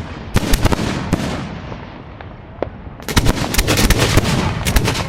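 Fireworks exploding at close range: a quick cluster of sharp bangs at the start, a single crack in the middle, then a dense, rapid run of cracking reports from about three seconds in.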